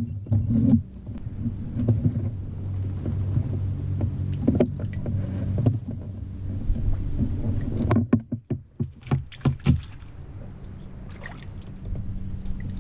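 Knocks and handling noises on a fishing kayak as a caught rainbow trout is held and moved about, over a steady low hum. A quick run of sharp knocks comes about eight seconds in.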